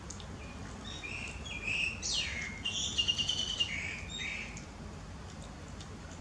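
High-pitched animal chirps and squeaks: a string of short calls with a fast, trill-like run of rapid chirps in the middle.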